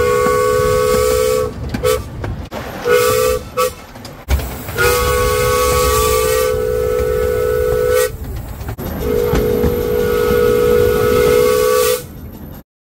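Miniature steam locomotive's two-note whistle sounding for a whistle board: one long blast, a few short toots, then two more long blasts, over the rumble of the moving train.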